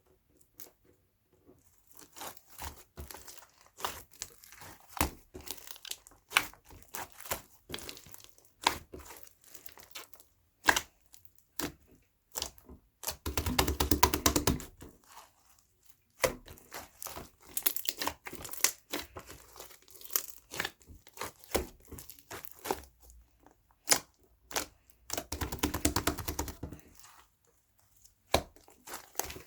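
Crinkling and crackling, with many short sharp crackles and two longer, denser stretches about halfway through and near the end.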